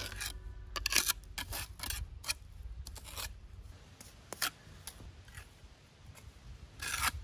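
Steel mason's trowel scraping and smoothing wet mortar over fieldstones, with short irregular scrapes and clicks of the blade against stone, the loudest about a second in and near the end.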